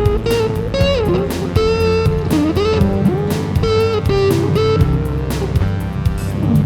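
Rock band playing an instrumental passage: an electric guitar lead line with bent notes over bass guitar and drums.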